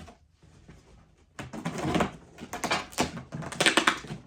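A shipping package being opened and its contents handled: a spell of rustling, crinkling and scraping of packing material with sharp clicks, starting about a second and a half in.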